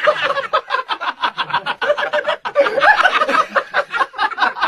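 A person laughing hard, a rapid unbroken run of short laughing bursts.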